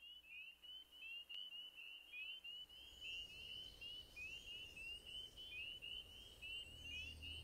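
Faint, rapid bird chirping: a continuous run of short, quickly repeated chirps, with fainter higher calls joining a few seconds in. A low musical drone fades in near the end.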